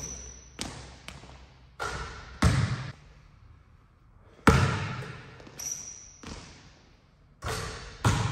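Basketball bouncing on a hardwood gym floor: about half a dozen separate impacts, each echoing through the hall, the loudest about four and a half seconds in. Two short high squeaks, one at the start and one shortly before six seconds.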